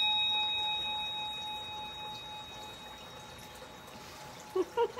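Tibetan hand bell (ghanta) ringing out after being struck, its clear tones fading slowly; the lowest tone dies away about halfway through. Near the end comes a short burst of giggling.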